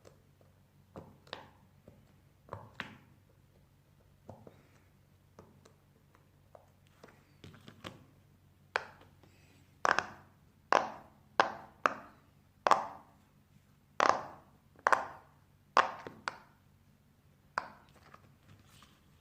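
Bubbles of a silicone pop-it fidget toy being pressed one at a time, each giving a short hollow pop. The first pops are faint and scattered; from about halfway through, a run of louder pops comes roughly one every second or less.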